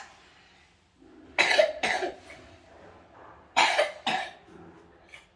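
A person coughing, sick with illness: two short fits of two or three coughs each, about a second in and again about three and a half seconds in.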